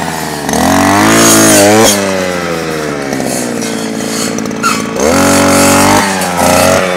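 Brush cutter engine revving up under load as the blade cuts into a thick branch. The pitch rises, drops back, then rises again near the end.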